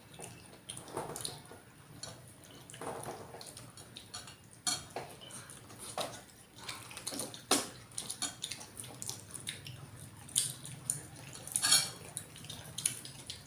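Metal eating utensils clinking and scraping against plates and a soup bowl during a meal, in irregular sharp clicks and knocks.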